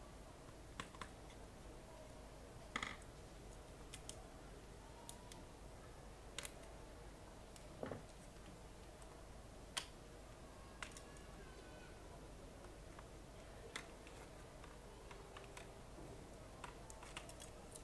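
Sparse small clicks and taps, about a dozen spread out and none loud, as screws, a screwdriver and the plastic parts of a ThinkPad T500's base are handled, over faint room tone.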